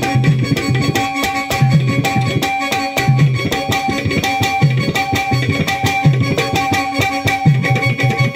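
Instrumental interlude of Marathi waghya-murali folk music: hand drums play a steady repeating rhythm under recurring melodic notes, with no singing.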